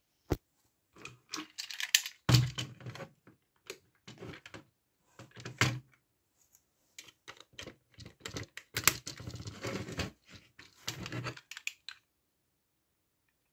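Handling noise from a battery-operated plastic toy car: irregular clicks, knocks and rattles of the hollow plastic body and battery compartment as the batteries are handled and the car is turned over. The clatter stops about two seconds before the end.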